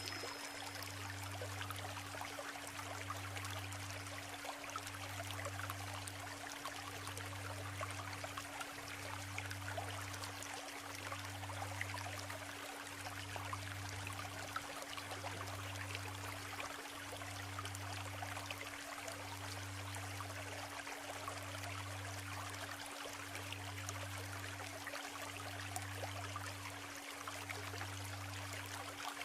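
Shallow river stream babbling over stones, with a steady low tone and a deeper hum laid over it that pulses about once every two seconds.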